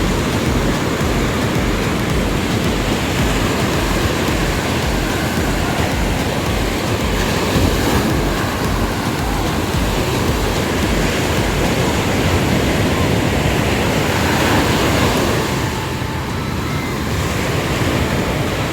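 Ocean surf breaking and washing up the beach, a dense, steady rush of waves, with wind rumbling on the microphone.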